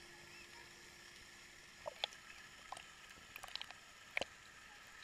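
Shallow pool water lapping and splashing as a child's hand and arm paddle right beside a camera at the waterline: a faint steady wash with short, sharp little splashes about two seconds in and again several times between three and a half and four seconds.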